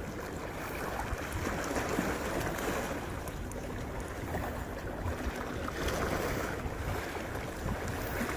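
Sea waves washing against the shore with wind buffeting the microphone, a steady rushing noise with a few faint clicks and a faint steady hum in the middle.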